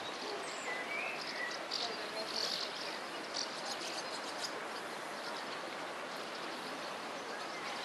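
Outdoor riverside ambience: a steady rushing hiss with a few short, high bird chirps in the first half.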